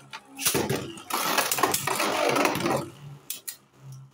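Two Beyblade spinning tops, one of them 3D-printed, are launched into a plastic stadium and battle. There is a brief rip at the launch, then a loud grinding, rattling whirr as they spin and clash on the plastic floor and against each other, which fades to a softer spin with a few sharp knocks near the end.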